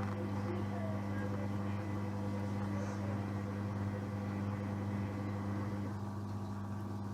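Hoover washing machine's drain pump running with a steady hum as it pumps out the rinse water ahead of the spin. The higher part of the sound drops away about six seconds in.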